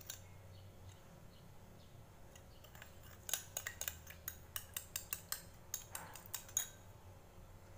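Metal spoon clinking lightly against a small bowl while stirring a soy sauce, salt and pepper sauce: a run of faint quick clicks, about four a second, between about three and six and a half seconds in.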